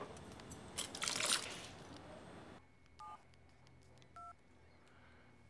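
Restaurant clatter of dishes and cutlery that cuts off about two and a half seconds in. Two short two-tone keypad beeps from a flip phone follow, about a second apart, as buttons are pressed.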